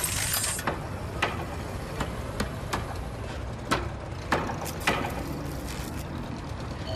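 Sharp mechanical clicks and ticks at uneven intervals, about a dozen, the loudest a few seconds in, over a steady low hum of ambient machinery.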